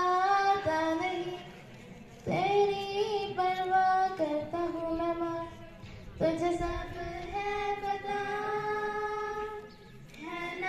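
Two young girls singing a song together in long held phrases, with short breaks between them.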